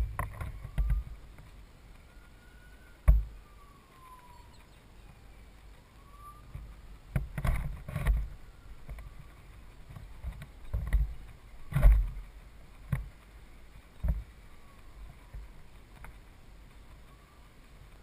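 Gusty wind buffeting the action camera's microphone: irregular low rumbling blasts and a few sharp thumps, the loudest a little after three seconds and near twelve seconds in, over a quiet background with faint high whistles.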